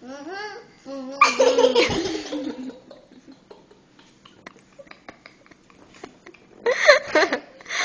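Girls laughing and giggling: short, bouncing giggles at the start, a loud burst of laughter about a second in, a quieter stretch, then loud laughter again near the end.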